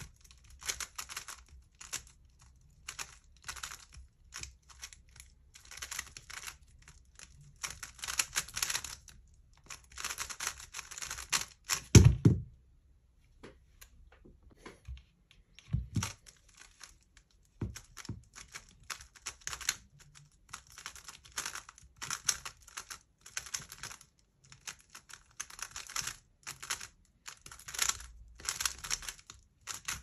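Plastic 3x3 speedcube being turned fast, a dense clicking and clattering of layers snapping round in quick bursts with short pauses between. A hard thump comes about twelve seconds in, then a few seconds of near quiet, another thump, and the fast turning starts again.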